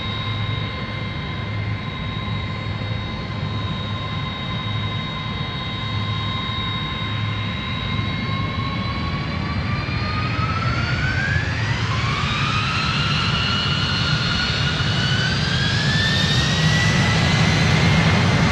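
Boeing 747-200F jet engines whining at a steady pitch, then spooling up from about eight seconds in. Their whine rises and the sound grows louder as thrust is applied.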